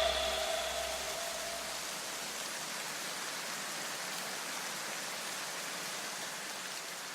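The last notes of electronic music ring out and fade within the first two seconds, leaving a steady, even hiss.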